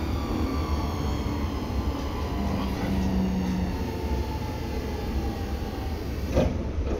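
Seibu 6000 series electric train running, heard on board with a steady rumble and the held tones of its Hitachi GTO-VVVF inverter drive. A single sharp knock cuts through about six and a half seconds in.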